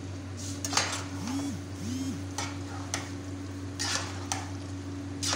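A utensil stirring penne pasta in a thick white sauce in a pot, with irregular scraping and clinking strokes against the pot and a couple of brief squeaks in the first few seconds. A steady low hum runs underneath.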